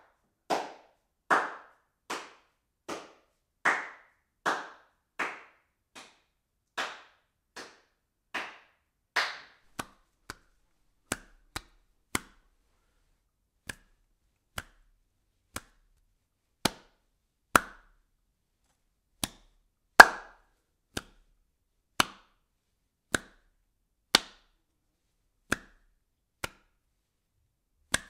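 Single hand claps, one at a time with silence between. For the first ten seconds they come evenly, about one every 0.8 s, each with a short ring. After that they turn shorter and sharper, spaced unevenly, and some are louder than others.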